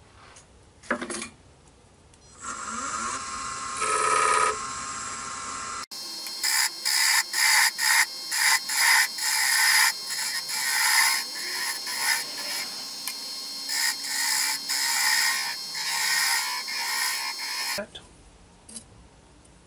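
Wood lathe switched on with a click, its motor whine rising as it spins up and then running steadily. Then a turning tool cuts the spinning hardwood handle blank in quick repeated passes: a hissing scrape about twice a second.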